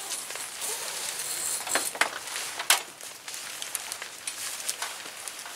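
Nylon tent fabric rustling and crinkling as an SUV tent's sleeve is pulled over the back of the car, with a few sharp snaps about two to three seconds in.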